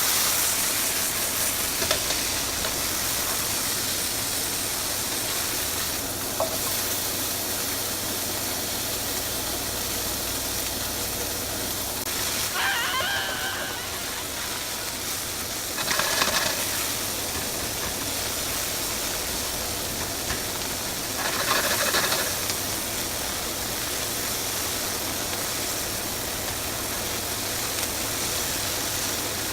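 Food sizzling in a frying pan: a steady hiss, with three brief louder clatters or scrapes of cookware over the course of it.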